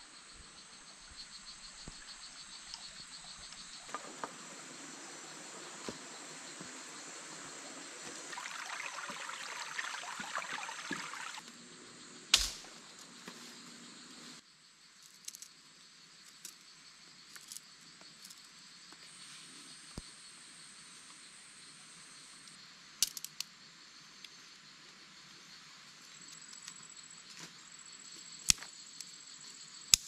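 Rainforest insects trilling steadily in high, even tones, with a rushing hiss for several seconds in the first half and a few sharp clicks, the loudest about twelve seconds in.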